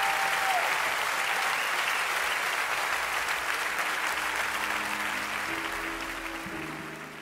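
Large concert-hall audience applauding, dying away over the last few seconds. A few steady held musical notes come in about halfway through.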